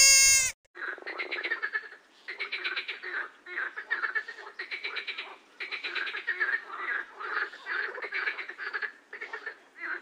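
A short, loud, high bleat from a young deer that cuts off about half a second in. It is followed by a long run of rapid, rattling croak-like animal calls in bouts of about a second, with short pauses between them.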